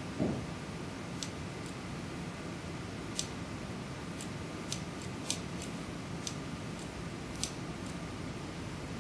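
Short, sharp plastic clicks, about six at irregular intervals, from a LEGO Technic mechanical hand being worked by a pulled string, over a steady hiss. There is a soft thump about a quarter second in.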